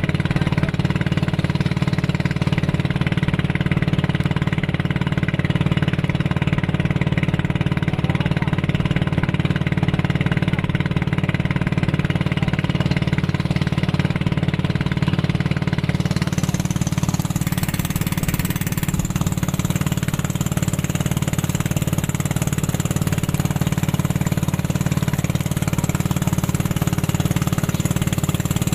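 Tow boat's engine running steadily at speed, a loud, even hum. A higher hiss of rushing air and water joins about halfway through.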